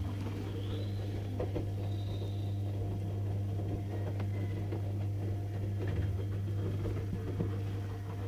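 A steady low mechanical hum, running evenly and stopping abruptly just after the end. Faint high squeaks sound over it about a second and two seconds in, as from the newborn puppies.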